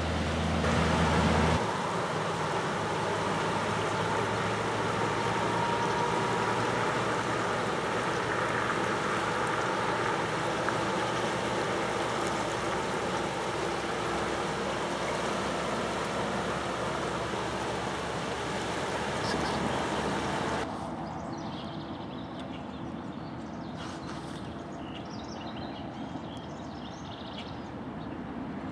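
Steady rushing noise of wind and fast, swollen floodwater on a river. About two-thirds of the way through it drops to a quieter, calmer background with a few faint high chirps.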